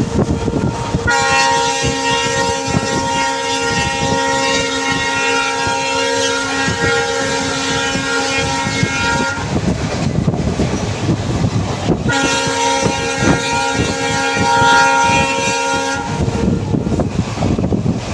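Multi-note horn of a WDP4D diesel locomotive hauling an express running through a station without stopping: one blast ends just as the sound opens, then a long blast of about eight seconds and a second of about four. Underneath, the coaches' wheels rumble and clatter steadily over the rails at speed.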